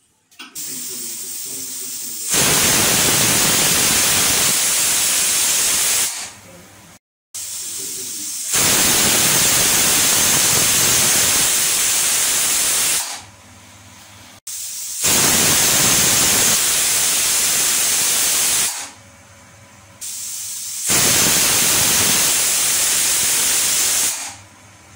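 Pressure cooker whistling: steam hisses out of the weight valve in four loud blasts of about four seconds each, each one after a softer hiss as pressure builds. The four whistles mark the cooking time set for the chicken curry.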